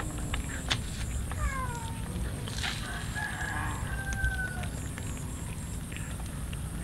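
A rooster crows once, a long drawn-out call held steady near the middle. Small clicks come from cats eating rice off a plate.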